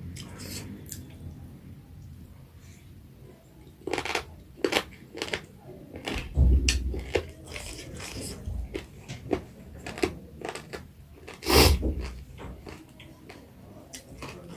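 Close-up eating sounds: chewing, lip-smacking and wet mouth clicks of a person eating pork curry, in irregular bursts. There are two louder low thumps, about six and twelve seconds in.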